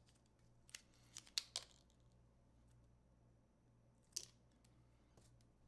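A few faint, sharp clicks and taps of small parts being handled while a battery is fitted into a Sig Sauer Romeo5 red dot sight. There is a cluster of about four clicks starting about a second in, then a single sharper click a little past four seconds.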